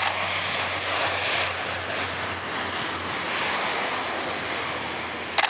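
Lockheed C-130J Super Hercules 'Fat Albert' flying by, its four turboprop engines making a broad, steady roar that slowly fades.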